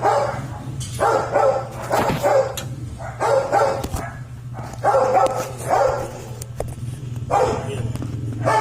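A dog barking over and over in short runs of barks, over a steady low hum.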